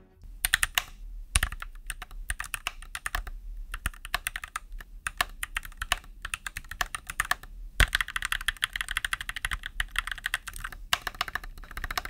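Typing on a stock, unmodded Keychron C1 H1 mechanical keyboard with Gateron Red linear switches, a fast stream of key clacks heard as a before-modding sound test. A couple of keystrokes land heavier, and a denser, quicker run of keystrokes comes about two thirds of the way in.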